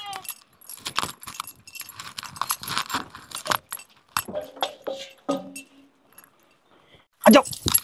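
Heavy metal neck chains, bracelets and rings jangling and clinking in quick, irregular rattles as the wearer walks briskly.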